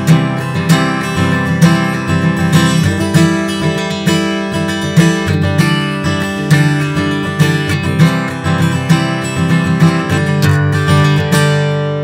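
Eastman E10D dreadnought acoustic guitar strummed in a steady rhythm through a chord progression; near the end the last chord is left to ring and fades out.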